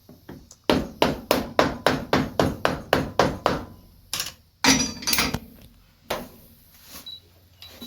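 Hammer driving a small nail into a rubber boot sole: a quick run of about a dozen light taps, three to four a second, then a few harder, slower blows.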